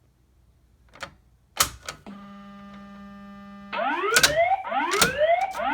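A few sharp clicks, then a steady buzzing alarm tone for about a second and a half, then a voice evacuation fire alarm speaker sounding a whoop tone, a rising sweep repeated about once a second, with loud clicks among the sweeps.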